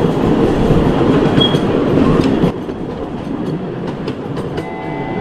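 Small diesel ride-on miniature train running along its track, its rumble and rattle heard from aboard. The sound drops to a quieter run about halfway through, and a steady tone comes in near the end.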